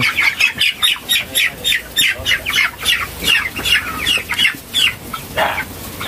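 A pen of young white broiler chickens peeping: a steady run of short, high, falling cheeps, several a second. One louder, lower call comes near the end.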